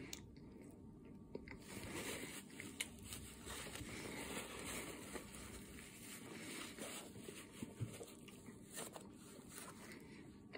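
Faint close-up sounds of eating taquitos, with chewing and mouth clicks. In the middle, a paper towel rustles against the mouth as it is wiped.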